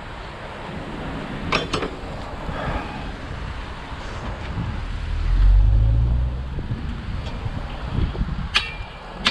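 A vehicle's low engine rumble swells and fades about halfway through, over steady outdoor noise, with a few short ringing strikes near the end.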